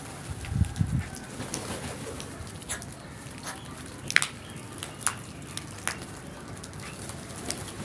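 Birds calling: a pair of low calls about half a second in, then short sharp calls or clicks spaced roughly a second apart.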